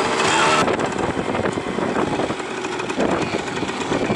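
Moped engine running, with its pitch briefly rising and falling in the first second.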